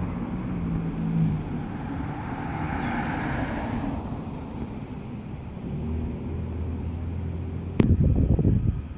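Motor vehicle running on the nearby road, a steady low drone that shifts slightly in pitch. Near the end comes a sharp click followed by a few seconds of louder low rumbling.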